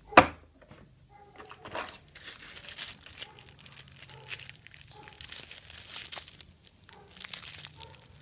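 A sharp click just after the start, then irregular plastic crinkling and rustling as items in a tool accessory kit are handled.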